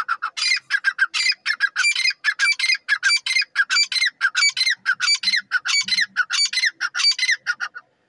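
Grey francolin (dakhni teetar) calling: a fast, unbroken run of short, sharp, high notes, about six a second.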